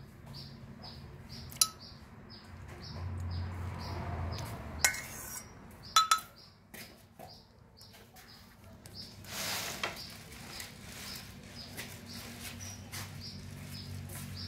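Metal spoon clinking and scraping against a stainless steel bowl while picking cooked fish flesh off the bones, with a few sharp clinks. A high chirp repeats about twice a second in the background.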